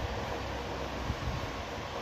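Steady background noise with a faint low hum, and a brief soft knock about a second in.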